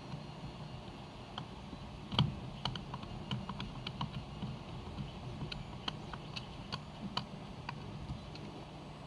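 Irregular light clicks and taps of small parts and a hand tool being handled while a stock plate is fitted and screwed down. There is one louder knock a little over two seconds in, over a steady low hum.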